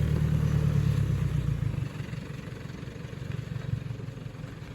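Four-wheel-drive vehicle engine running at low revs, a low rumble that is loud for about the first second and a half, then drops and carries on quieter.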